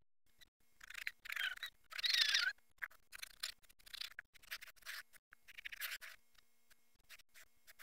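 Snap-off utility knife blade slicing through a block of styrofoam: several short scraping strokes, with small clicks and crackles between them.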